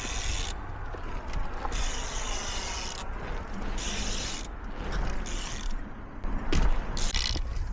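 Bicycle freewheel hub ratcheting as the trials bike coasts, a fast run of clicking over low rumble, with a sharper knock near the end.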